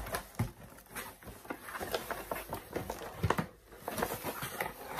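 Unboxing noises: hands rummaging in a cardboard box and handling a plastic-bagged steering wheel cover, with irregular rustling, scraping and light knocks.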